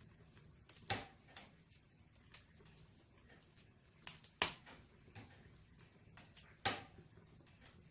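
Wood fire crackling in a fireplace: three sharp pops, about a second in, near the middle (the loudest) and near the end, among fainter small ticks.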